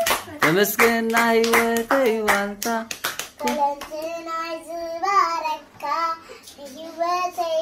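A young girl singing a song, holding and sliding between notes. Hands clap a steady beat, two to three claps a second, through about the first three seconds, then the singing goes on without them.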